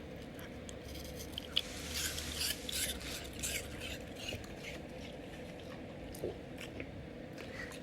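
A golden retriever chewing, with a run of irregular crisp crunches that is busiest between about one and a half and four seconds in, then thins out to scattered clicks.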